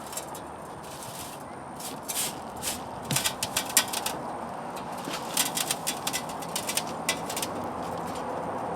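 Old steel water heater tank being pulled open along its cut: clusters of short, sharp clicks and scrapes over a steady hiss.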